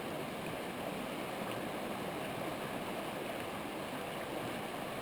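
Chattahoochee River water flowing past the angler: a steady, even rush of stream current.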